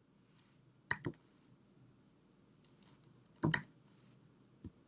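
Computer keyboard keys clicking a few times: a quick pair about a second in, a louder cluster of keystrokes past the middle, and a single tap near the end.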